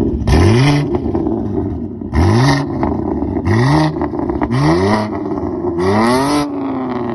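A BMW M car's twin-turbo straight-six revved through its exhaust five times, each blip rising sharply in pitch then dropping back with a loud raspy exhaust note; the last rev is held a little longer and falls away slowly.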